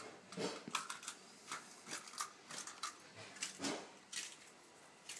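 Monitor lizard working an egg in its jaws: an irregular run of sharp crunching clicks and wet squishing as the shell breaks, with a couple of duller thumps.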